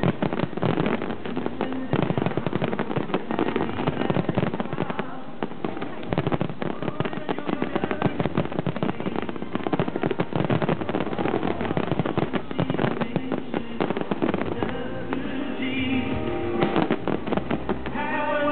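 Aerial fireworks crackling and bursting in rapid, dense succession, with music playing along. About fifteen seconds in, the bursts thin out and the music comes forward.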